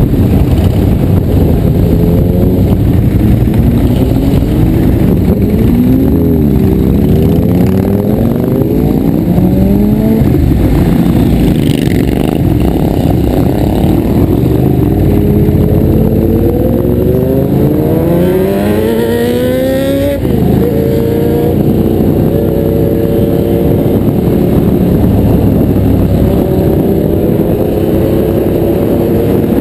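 Motorcycle engines running hard and accelerating through the gears, the pitch climbing again and again and falling back at each shift, with one sharp drop about two-thirds of the way through.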